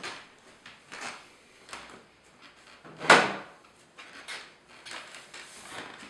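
Short scrapes and knocks from a computer workstation's case being handled, with one loud clunk about three seconds in.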